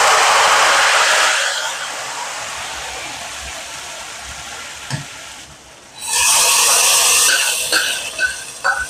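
Tadka of browned onions in hot oil poured from a frying pan into a pot of simmering nihari gravy: a loud sizzle that fades over a few seconds, a single knock about five seconds in, then a second loud sizzle about six seconds in as more oil goes in, dying down again.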